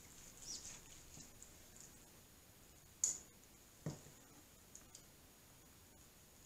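Kitchen knife slicing through tender cooked turkey breast and tapping down onto a plastic cutting board: a few faint clicks, the sharpest about three seconds in, then a duller knock about a second later.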